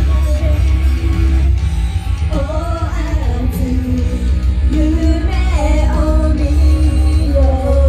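Live idol-pop song: female voices singing through handheld microphones over a loud backing track with a heavy, steady bass. A long note is held near the end.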